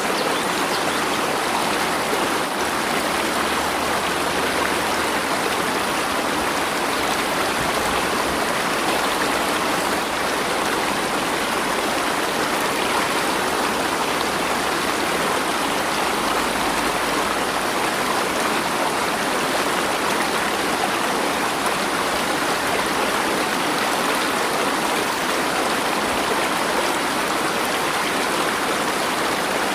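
Water flowing steadily in a stream, a continuous even rush without pauses or changes.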